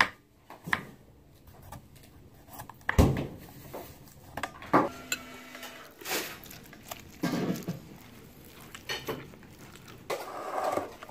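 Kitchen utensil sounds: a knife cutting a cucumber, then a metal fork clinking and scraping against a glass bowl while stirring chunky guacamole. The sound comes as separate knocks and clinks, the loudest about three seconds in.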